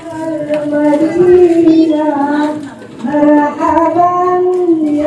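A single high voice singing long held notes that bend slowly up and down, with a short break about three seconds in.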